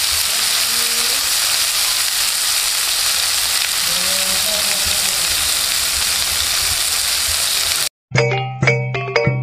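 Prawns sizzling in oil in a non-stick grill pan: a steady frying hiss that cuts off suddenly about eight seconds in. Right after the cut, music of quick struck, ringing notes begins.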